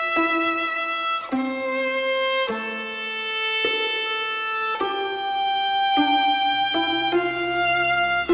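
Background music: a violin playing a slow melody of long held notes that change every second or so.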